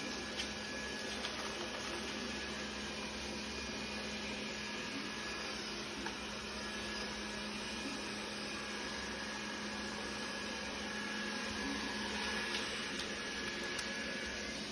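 Robot vacuum cleaner running steadily, an even whirring hiss over a low hum, with a few light clicks.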